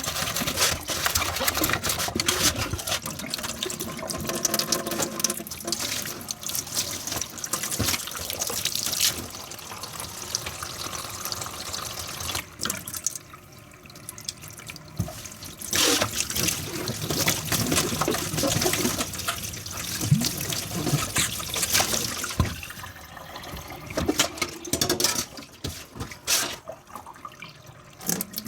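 Tap water running into a kitchen sink while dishes are washed, with frequent clinks and knocks of dishes against each other and the sink. The water and clatter drop away briefly about halfway through and again near the end.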